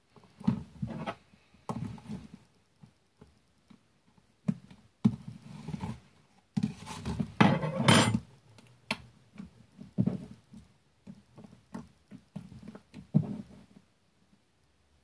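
Slime being squished, stretched and poked by hand, making irregular sticky squelches and clicks, loudest about seven to eight seconds in.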